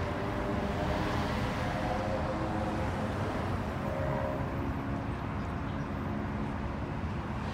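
Jet engine noise of a Boeing C-17 Globemaster III on final approach, from its four Pratt & Whitney F117 turbofans: a steady rumble with a few faint whining tones that slowly shift in pitch.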